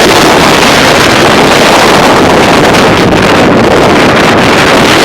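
Strong wind gusts of a windstorm buffeting the microphone: a loud, steady rush of wind noise.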